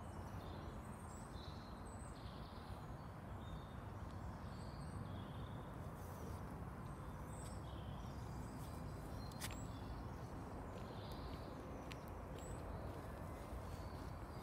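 Quiet outdoor ambience: scattered faint small-bird chirps over a steady low rumble.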